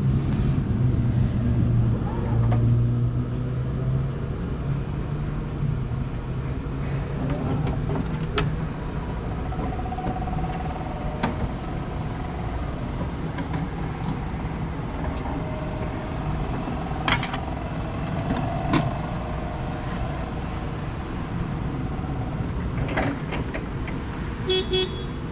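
Toyota 6BRU18 36-volt electric stand-up reach truck running as it is driven around: a steady hum with a faint motor whine, with scattered clicks and knocks.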